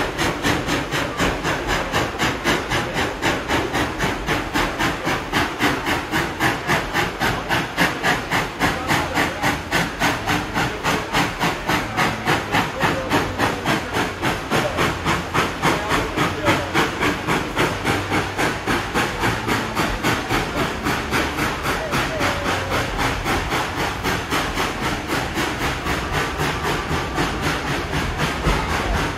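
Steam locomotive chuffing in a fast, even rhythm, heard from a passenger car of the moving train, with a steady hiss under the beats.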